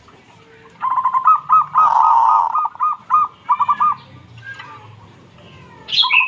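Caged zebra dove (perkutut) cooing: a fast run of short, clipped coos with one longer held coo in the middle, then a second short run near the end.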